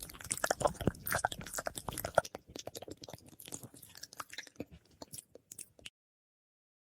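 ASMR mouth sounds with added echo: a quick run of wet clicks and smacks close to the microphone, thinning out and getting quieter after about two seconds, then cutting off suddenly about six seconds in.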